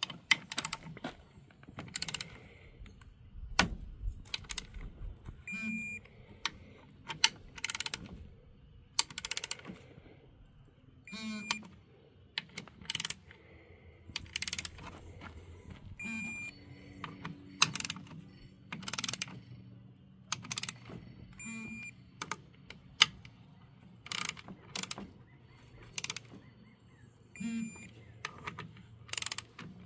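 Torque wrench ratcheting bolts down on a Humvee water pump, with a short high beep about every five seconds as each bolt reaches its 17 torque setting. Sharp metal clicks and clanks of the socket and bolts between the beeps.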